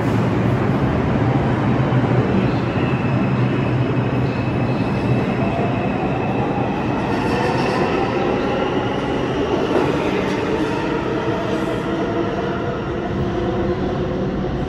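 New York City subway train with R142-family cars pulling out of an underground station: a low hum and wheel rumble, with the traction motors' whine climbing in pitch in several stacked tones from about five seconds in as the train accelerates.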